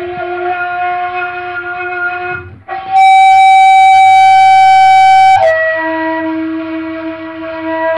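Saluang, a Minangkabau end-blown bamboo flute, playing long held notes: a low note, a brief break about two and a half seconds in, then a much louder note about an octave higher for some two and a half seconds, falling back to a low held note.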